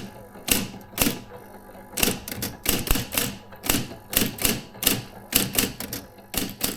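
Adler Junior Electric electric typewriter being typed on: sharp key strikes in an uneven typing rhythm, a few strokes a second with brief pauses between bursts.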